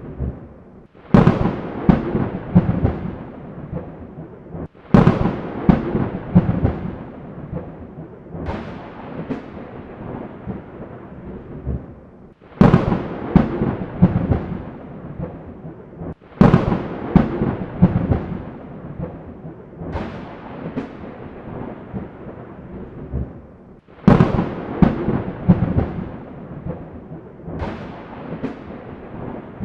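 Thunderstorm: eight sharp thunderclaps at an even spacing of about four seconds, each followed by a few smaller cracks and rumble that fade, over a steady hiss of rain.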